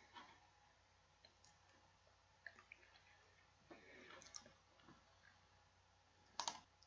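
Near silence: room tone with a few faint, isolated clicks of a computer mouse.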